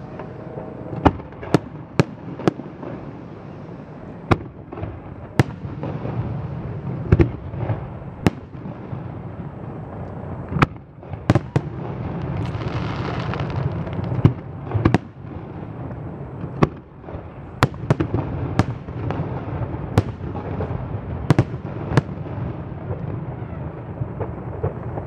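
Fireworks display: aerial shells bursting in an irregular string of sharp bangs, some twenty-five of them, over a steady low rumble, with a hissing crackle of a burst about halfway through.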